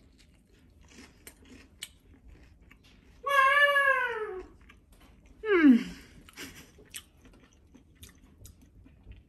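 A cat meows twice: a long meow that rises and then falls, about three seconds in, and a shorter one that slides down, two seconds later. Faint chewing clicks sound between them.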